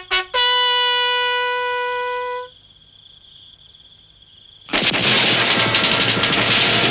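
A bugle call ends on one long held note that cuts off suddenly. After a short lull, heavy, rapid gunfire breaks out a little past halfway and keeps going.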